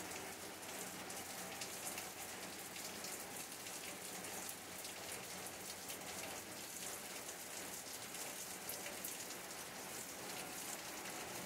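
Steady heavy rain: an even hiss of falling water, flecked with the fine taps of single drops.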